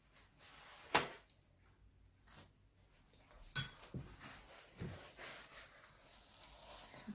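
Quiet handling sounds: a sharp click about a second in, then soft rustling of a paper napkin as it is pulled out and wiped over a toddler's mouth.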